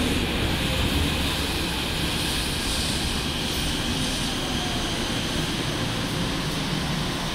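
Tokyo Metro Hibiya Line subway train arriving at the platform, its cars rolling past with a steady rumble and hiss of wheels and motors.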